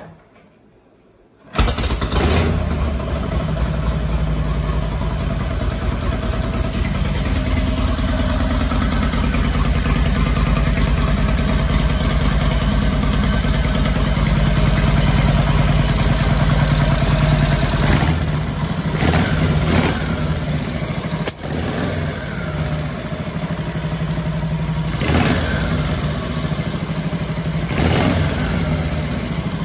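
1955 Harley-Davidson Panhead V-twin engine, with ported heads and an Andrews cam, kick-started on its first start after a fresh build: it catches about a second and a half in and then runs steadily, with several short blips of the throttle in the second half.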